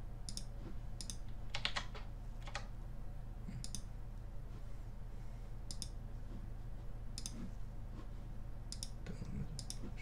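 Computer mouse clicking, short sharp clicks at irregular intervals about once a second, over a steady low hum.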